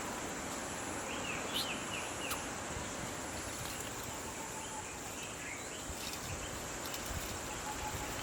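Steady high-pitched insect drone over a constant background hiss, with short falling bird chirps about a second in and again around six seconds in, and a few faint clicks.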